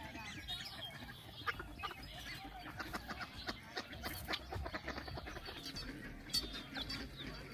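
Birds calling: many short chirps and clucking calls overlapping throughout.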